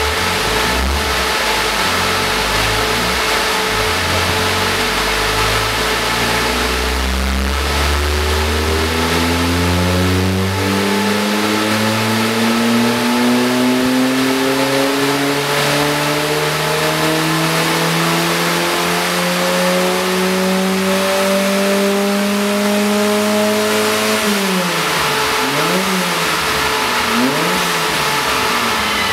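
Volkswagen Golf Mk1 1.3-litre 8-valve carburettor engine, fitted with a 268 camshaft, a Powerflow branch manifold and a 50 mm stainless two-box exhaust, running at the tailpipe. It idles, then its revs climb slowly and steadily for about fifteen seconds before dropping back suddenly. It is then blipped twice near the end.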